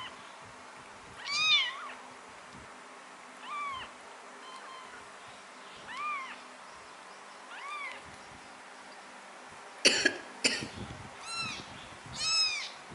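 Newborn kittens mewing: about six thin, high mews, each rising then falling, one every second or two. A sharp knock and rustling come about ten seconds in.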